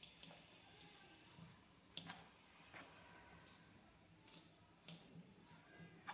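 Faint, irregular clicks and taps of a spoon against a pan as ground sesame is stirred into thick jaggery syrup.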